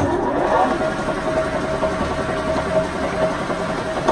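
LeBlond Regal engine lathe's geared headstock running as the spindle and chuck turn, with a steady gear whine. There is a knock right at the start as the drive engages and the sound gets louder.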